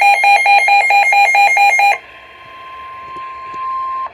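Weather alert radio alarm sounding loud rapid pulsing beeps, cutting off about halfway through. A single steady tone near 1 kHz, the weather broadcast's warning alert tone, is left and swells slightly before stopping near the end.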